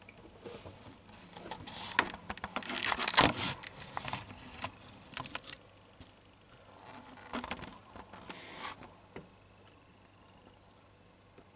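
Handling noise: a run of light clicks and rustles, densest about two to four seconds in, with a few more around seven to nine seconds in, typical of a handheld camera being moved around plastic seedling containers.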